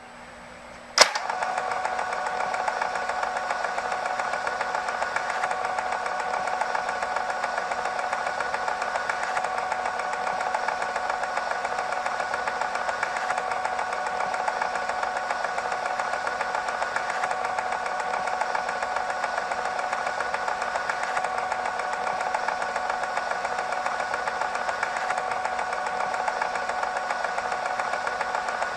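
Old film projector running: a sharp click about a second in, then a steady mechanical whir with a fast, even flutter as the film runs through.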